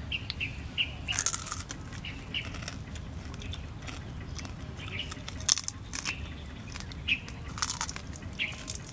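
Chewing and crunching of spit-roasted duck eaten by hand, with three louder crunches about a second in, midway and near the end. Short bird chirps come and go.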